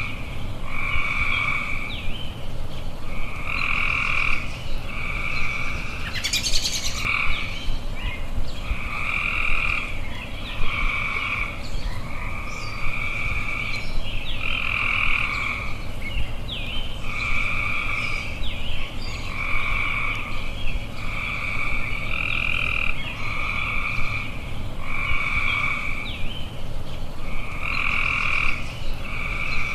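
Frogs croaking in a steady chorus, a call roughly every second or so, with faint bird chirps over it and a brief rising chirp about six seconds in.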